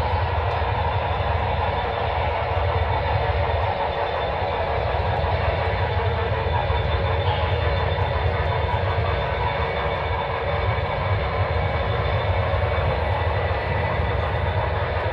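HO scale model trains running with Broadway Limited Rolling Thunder sound: a steady low rumble under a continuous train running noise.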